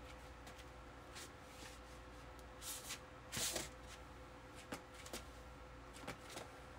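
Faint, brief rustling and swishing noises as a sledgehammer is swung and levered by hand, about eight of them, the loudest about three and a half seconds in, over a low steady hum.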